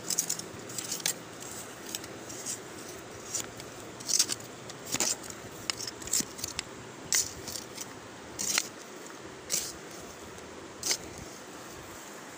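A hand-held stone being scraped and tapped against another stone or tool: a string of short, sharp, irregularly spaced clicks and scrapes.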